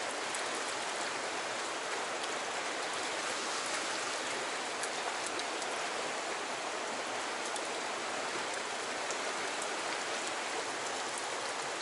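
Fast, turbulent stream current rushing past in a steady, even wash of water noise.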